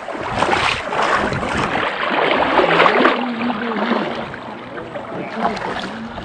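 Shallow river water splashing and sloshing as someone wades in with a landing net, loudest in the first few seconds and easing off after that.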